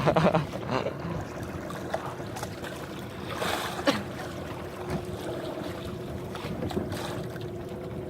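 A fishing boat's engine running steadily under way, with wind and water noise and a brief louder rush about three and a half seconds in.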